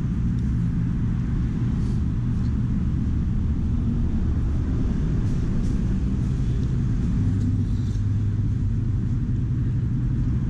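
Steady low rumble of street traffic, with a constant engine hum underneath.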